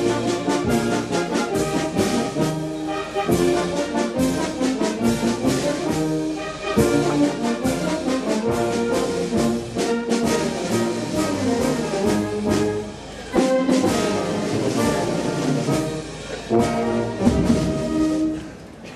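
Brass band playing a tune of sustained notes, stopping shortly before the end.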